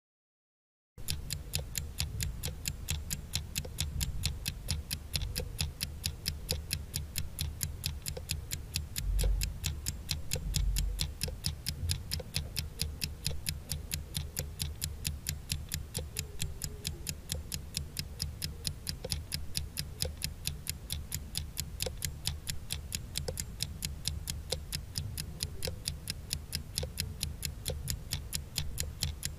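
Countdown-timer clock ticking sound effect: steady, quick, even ticks, starting about a second in.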